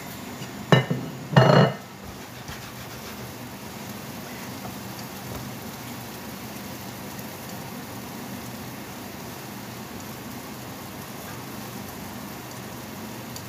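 Omelette frying in a pan with a steady sizzle. About a second in, a plate is set down on the worktop with two quick knocks that ring briefly.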